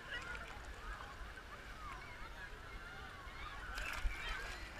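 Crowd of beachgoers in the surf: many distant overlapping voices, shouts and children's cries, over a low rumble of moving water. Water splashes close by about four seconds in.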